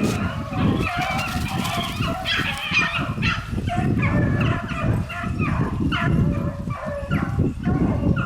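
A pack of beagles baying as they run a rabbit: many short, overlapping calls in quick succession. Wind rumbles on the microphone underneath.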